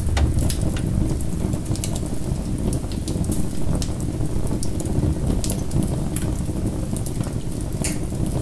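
Wood fire crackling in a fireplace, with irregular sharp pops and snaps over a steady deep rumble.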